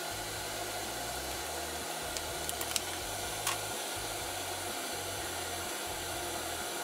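Steady whooshing noise of a running fan with a low hum under it, and a few faint light clicks about two and a half and three and a half seconds in.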